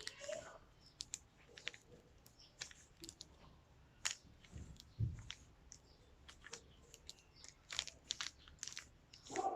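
Plastic Rubik's cube being turned by hand: quick, irregular clicks and clacks of its layers rotating, with a dull low thud about five seconds in.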